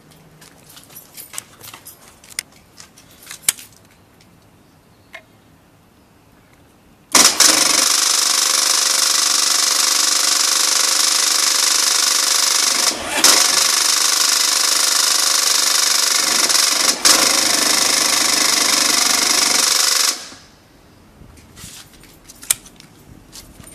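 A few light clicks, then the Buell XB9R Firebolt's electric horn sounds in one loud, steady buzz lasting about thirteen seconds, broken twice for a moment, before it cuts off.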